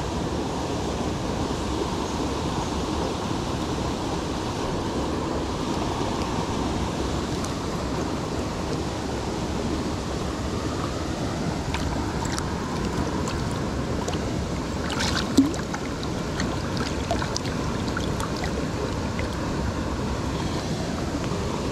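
Mountain stream rushing steadily, with scattered small clicks in the second half and one short sharp sound about fifteen seconds in.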